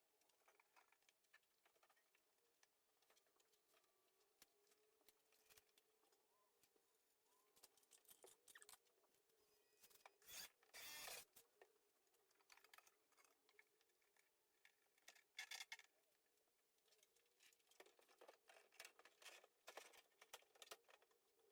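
Near silence, with faint scattered clicks and short scraping or rustling sounds, a little louder about halfway through.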